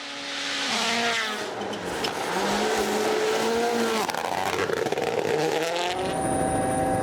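WRC rally car driven flat out on a gravel stage: the engine rises and drops in pitch through quick gear changes, with a rush of tyre and gravel noise as it passes. About six seconds in, the sound cuts to a steady hum.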